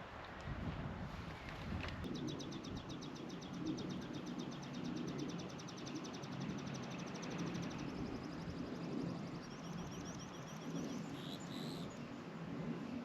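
A small bird singing a long, rapid trill of evenly spaced high notes, then a shorter, fainter trill with a couple of chirps near the end, over a steady low background rumble of wind.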